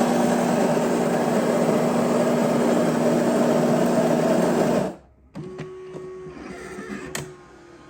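Built-in coffee grinder of a Mcilpoog WS-203 super-automatic espresso machine grinding beans for a double espresso, a loud steady grinding noise with a steady hum that cuts off about five seconds in. A much quieter mechanical whirring from the machine follows as it moves on to brewing.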